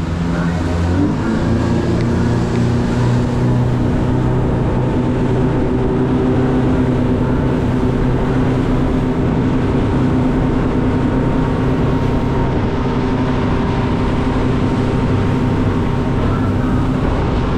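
Boat's outboard motor running under way, with water rushing along the hull. It is a steady drone whose pitch shifts about a second in and then holds.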